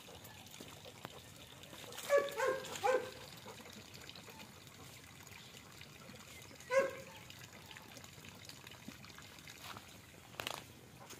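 Short pitched animal calls: a quick cluster of three or four about two seconds in and a single one near seven seconds, over a faint steady hiss. A brief noisy rustle near the end.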